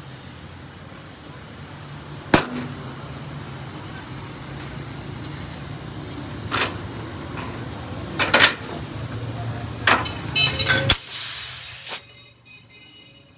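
Compressed air hissing into a car tyre on a tyre-changing machine while the bead is being seated, over a steady low hum, growing louder with several sharp snaps. Near the end a loud burst of hiss cuts off suddenly.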